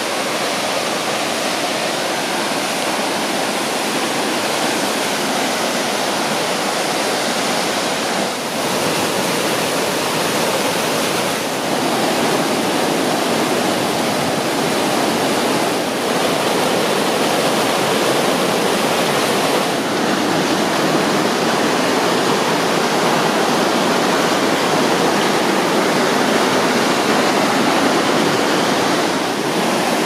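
The Gollinger Waterfall (Schwarzbach) pouring over rocks: a loud, steady rush of falling water, shifting slightly in level now and then.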